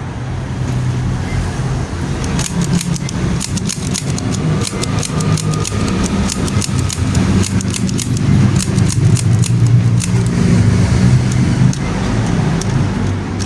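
Noisemaker toy pistol clicking rapidly and irregularly for several seconds, over a steady low hum.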